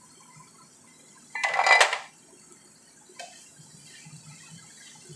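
A black spatula scraping and knocking against a frying pan while shredded chicken is stirred: a brief clatter of several quick strokes about a second and a half in, then a single lighter knock about three seconds in.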